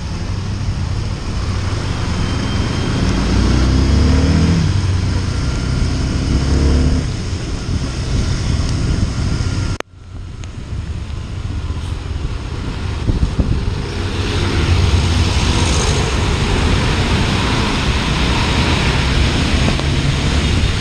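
Honda CB Twister 250F single-cylinder engine pulling away, rising in pitch through two gears, under steady wind and road hiss. The sound cuts out for a moment about halfway, and the hiss grows louder later on.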